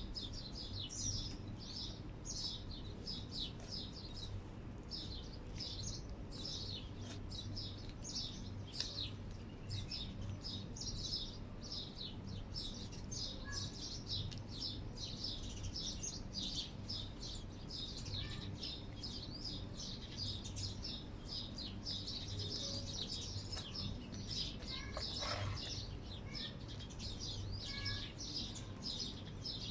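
Many small birds chirping without a break, a dense chatter of short high chirps, over a steady low hum.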